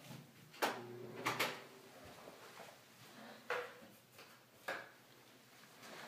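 A few sharp knocks and clicks at uneven intervals over faint room noise. The loudest is a quick double knock about a second and a half in, and two single knocks follow a second or so apart.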